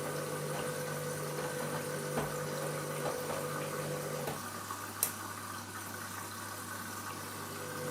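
Washing machine running mid-cycle: a steady motor and pump hum with water moving in the drum. The hum drops to a lower pitch a little past halfway, and there are a few light clicks, one sharper about five seconds in.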